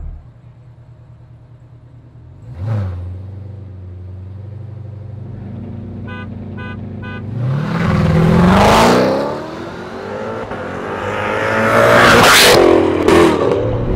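Corvette V8 idling, with a quick throttle blip, then launching hard from a standstill for a 0-60 run. The revs climb steeply, ease briefly, then climb again to a loud peak near the end.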